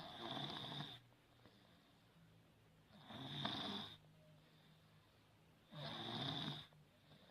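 A baby snoring: three snores about three seconds apart, each under a second long, each with a thin high whistle on top.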